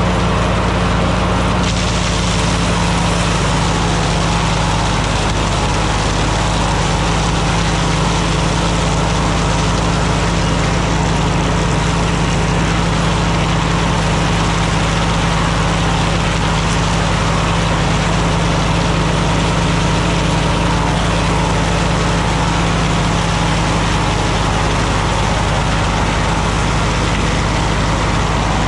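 Super W-6 tractor's four-cylinder engine running steadily under load, driving an S.A. Woods wood planer, with the planer adding a steady rushing noise over the engine. The rushing gets brighter about two seconds in.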